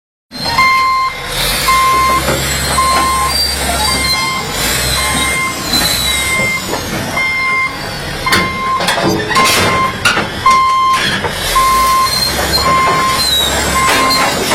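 Caterpillar D8N bulldozer's backup alarm beeping steadily, about two beeps a second, over its diesel engine running, with metallic clanks and high squeals around the middle.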